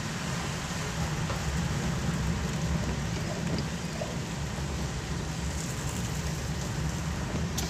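Heavy rain heard from inside a moving car: a steady hiss of rain on the car over the low rumble of the engine and tyres on the wet street. There is a single sharp click near the end.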